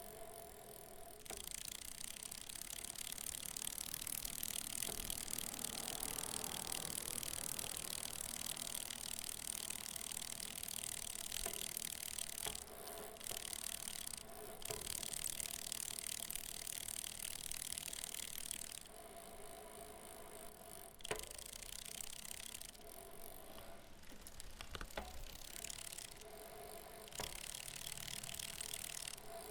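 Bicycle wheel spinning with the freewheel hub clicking rapidly, along with chain movement and light metallic mechanical noise. The clicking stops briefly and starts again several times in the second half.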